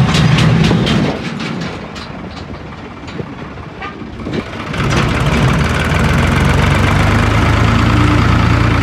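Modified New Holland 3630 tractor's diesel engine running while driving, with rapid sharp clatter in the first second. It drops quieter for a few seconds, then runs steadily and louder from about five seconds in.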